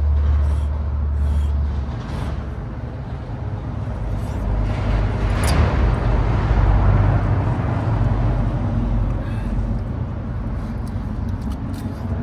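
Road traffic on the highway bridge overhead: a steady low rumble, with one vehicle passing that swells to its loudest about five to seven seconds in and then fades.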